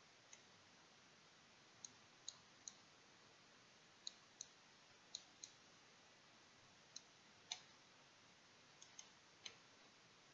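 Computer mouse clicking about a dozen times, singly and in quick pairs, over near silence.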